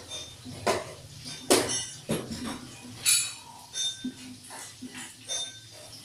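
Irregular clinks and knocks, some leaving short ringing tones.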